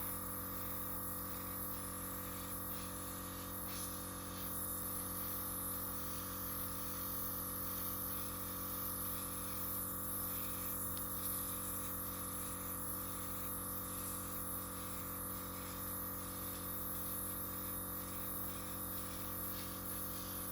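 Small air compressor running steadily at a low setting, a constant motor hum with a hiss of air blowing wet acrylic paint outward.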